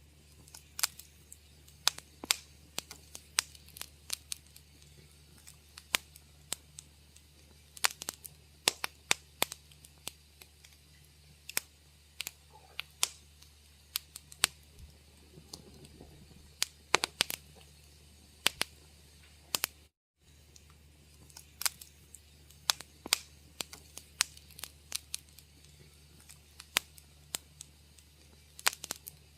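Wood fire crackling in a fireplace: irregular sharp pops and snaps, several a second, over a faint steady low hum. The sound drops out for a moment about two-thirds of the way through.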